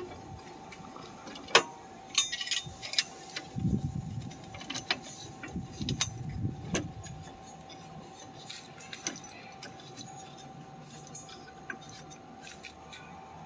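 Metal clinks, clicks and light knocks of bolts and hardware being fitted into an 80/20 extruded aluminum bed frame, several sharp ones in the first seven seconds and only faint ticks after. A faint steady hum runs underneath.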